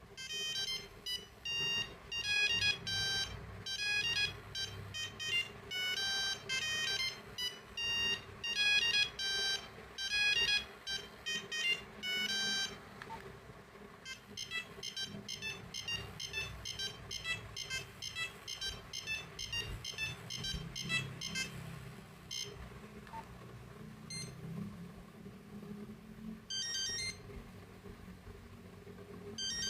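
Nokia 8250 mobile phone playing monophonic ringtone melodies of beeping notes. A loud, fast tune runs for about the first thirteen seconds, a quieter tune follows, and a few short scattered notes come near the end.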